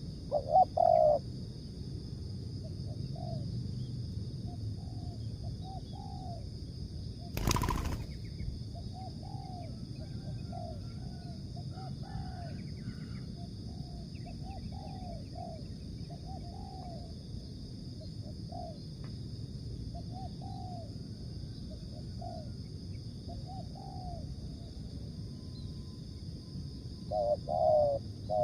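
Spotted doves cooing: one close bird gives loud coos right at the start and again near the end, with fainter coos from farther off in between. A single sharp knock about seven and a half seconds in.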